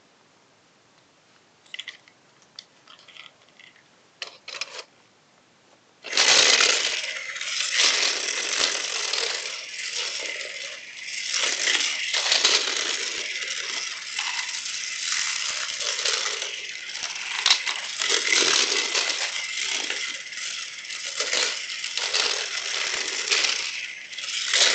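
Battery-powered Flexi-Track toy car running along its flexible plastic track, a loud continuous rattling whir that swells and dips as it travels. A few light clicks come before the car starts running about six seconds in.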